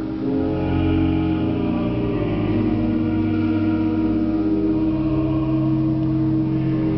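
Church pipe organ playing held chords with a changing bass line, reverberant in the nave.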